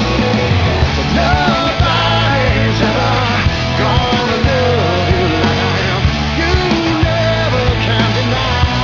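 Rock song with a sung vocal line over a steady bass and drums.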